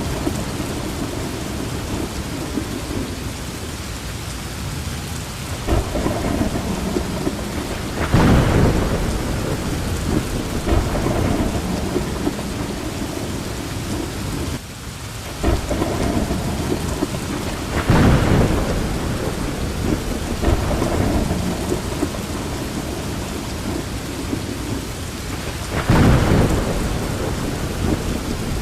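Steady heavy rain during a thunderstorm, with low thunder rumbling throughout and three louder thunder crashes, about eight, eighteen and twenty-six seconds in.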